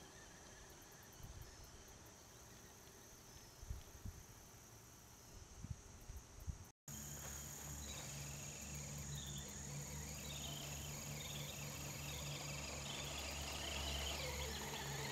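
Insects chirping over a grass field, with a few soft thumps in the first half. After a cut about seven seconds in, a steady low hum from the Axial SCX10 RC crawler's electric motor and drivetrain grows louder toward the end as the truck drives closer.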